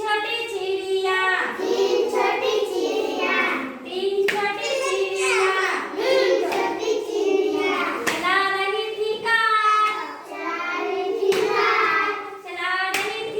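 A child singing a Hindi children's rhyme in short phrases, with a few sharp claps or taps between lines.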